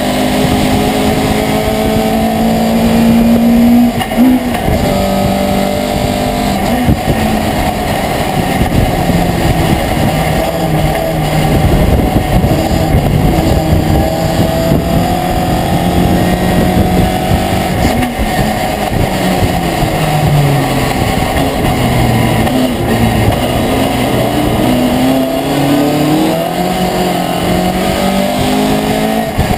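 Racing pickup truck's engine heard loud from inside the cab, working hard at racing speed. Its pitch climbs through the revs and drops suddenly at each gear change, over a steady rush of road and wind noise.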